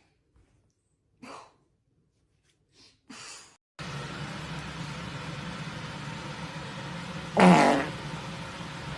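A few short farts, then a steady background hum starts abruptly about four seconds in. One loud fart comes near the end and is the loudest sound.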